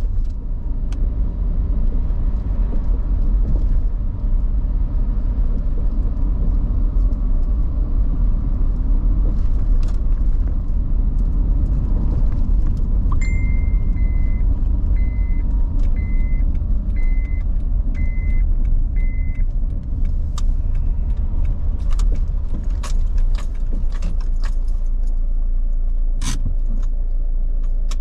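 Car cabin noise while driving: a steady low rumble of tyres and engine. In the middle come seven short electronic beeps about a second apart, and near the end scattered clicks and light rattles as the car slows to a stop.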